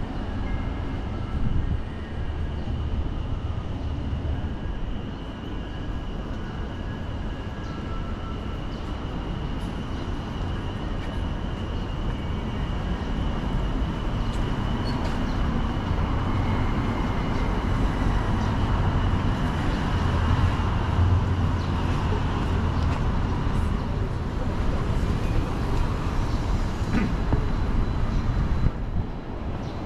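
City street traffic noise: a steady low rumble of passing vehicles that grows louder through the middle and eases near the end.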